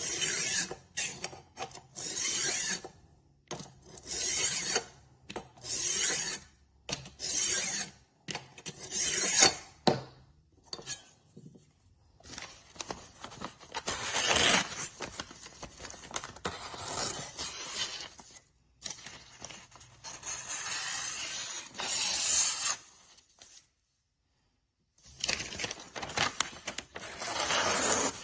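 Rolling knife sharpener being worked back and forth along a kitchen knife's edge, metal rasping against the abrasive disc. It starts as separate strokes about a second apart, then turns into longer runs of scraping, with a short pause near the end.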